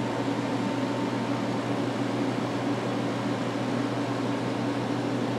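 Steady low hum with a fan-like whir over it, unchanging throughout: radio-room equipment running.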